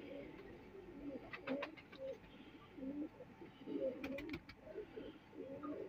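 Domestic pigeons cooing: soft, low, wavering coos that come and go, with a few light clicks.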